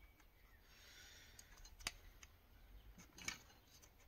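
Faint handling sounds of a rubber fuel hose being worked onto the plastic pickup-tube nipple of a diesel tank's sender unit: soft rubbing, one sharp click about two seconds in and a few small clicks about three seconds in.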